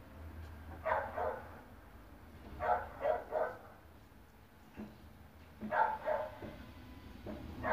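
A dog barking in three bouts of two or three short barks each, over a low steady hum.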